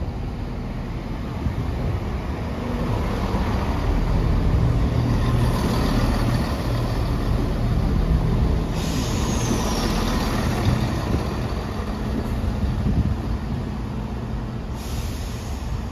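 Transport for Wales Class 170 Turbostar diesel multiple unit arriving at the platform, its underfloor diesel engines running with a steady low hum. The hum grows louder over the first few seconds as the train runs past close by, then eases off as it slows to a stop. A thin high squeal falling in pitch comes about nine seconds in.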